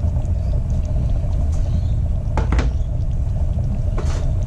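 Steady low rumble, with a quick double knock about two and a half seconds in and a lighter knock near the end.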